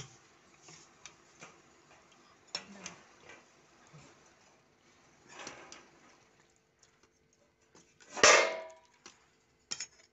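Scattered light clinks and taps of a steel ladle in a steel bowl of chicken curry, with one louder scrape a little past eight seconds in.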